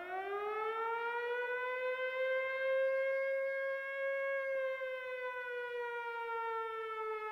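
A single long siren wail that rises in pitch over the first couple of seconds, holds, then slowly sinks.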